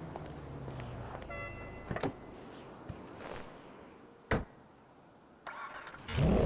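Audi RS6 engine running low and steady, with a few clicks and a short tone around two seconds in and a single sharp knock past the middle. Near the end the engine suddenly gets much louder, revving.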